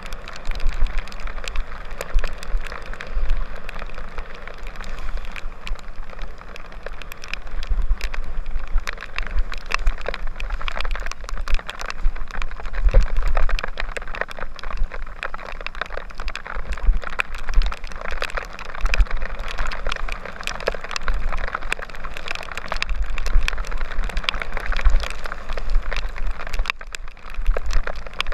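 Rockrider 9.1 mountain bike running fast down a wet dirt and gravel track: a steady crackling hiss of tyres over wet grit, with dense clicks and rattles as the bike jolts over stones. Wind buffets the microphone in gusts throughout.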